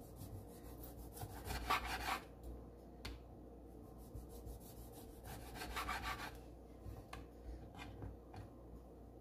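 Chef's knife slicing through a lemon on a bamboo cutting board: two longer sawing strokes, about two seconds in and about six seconds in, with a few short taps of the blade on the board.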